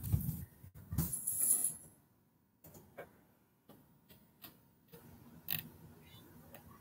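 A short rustle in the first second or so, then faint, scattered light clicks and taps of a computer mouse and keyboard, a second or so apart.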